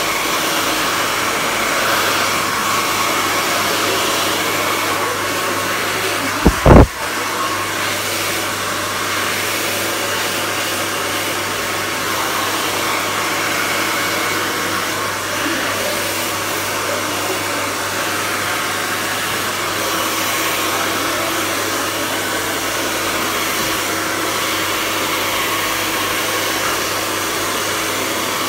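Handheld hair dryer blowing steadily during a blow-dry. Once, about seven seconds in, a single loud low thump cuts through it.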